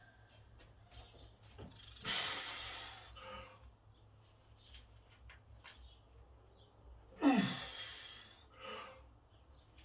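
A lifter's forceful breathing through two heavy back squat reps: a sharp exhale about two seconds in and a louder strained exhale with a falling grunt about seven seconds in, each followed by a shorter breath.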